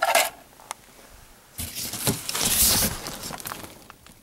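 A sharp clatter at the start, then about two seconds of crumpled packing paper crinkling and cables shifting inside a cardboard box as it is unpacked.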